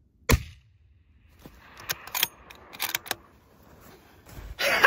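A single shot from a scoped bolt-action hunting rifle about a third of a second in, the shot that drops the elk. Over the next few seconds come a few quieter metallic clicks, typical of the bolt being worked, and near the end a loud excited shout breaks out.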